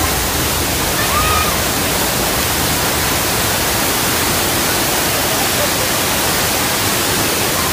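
A great mass of water rushing and cascading down a special-effects canyon set, released as a staged flood. It makes a loud, steady rush with no breaks.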